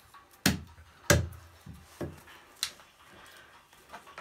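Large knife chopping raw buffalo meat on a wooden log block: four heavy chops with a dull thud, roughly half a second to a second apart, and a couple of lighter knocks between and after.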